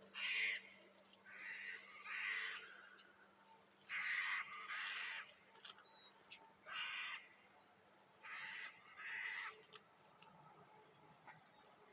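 Harsh, raspy bird calls of about half a second each, often in pairs, repeated every second or two, over a faint steady low hum.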